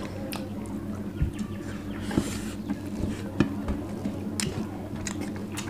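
Fingers mixing and squeezing rice on steel plates during a meal: scattered soft squishes and light clicks against the metal, over a steady low hum.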